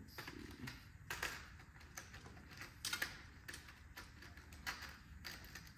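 Scattered light clicks and taps of small parts and a hand tool being handled over a plastic parts organizer on a workbench, irregular and faint, with the sharpest clicks about a second in and again about three seconds in.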